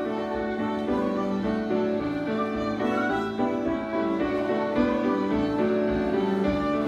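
Live band playing a reel tune for Scottish country dancing.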